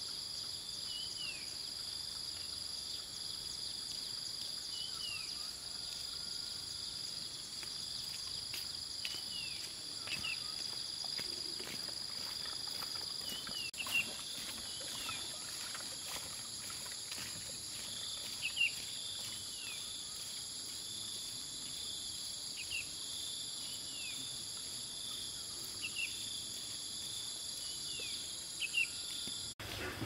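Steady chorus of insects singing in several high-pitched bands, with short falling bird chirps every few seconds.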